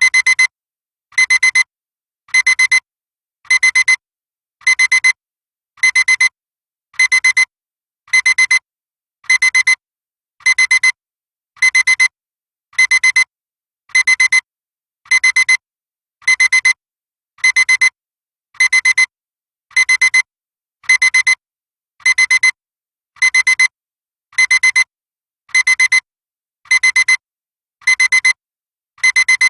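Electronic alarm clock beeping: short groups of rapid high-pitched beeps repeating about three groups every two seconds, without a break.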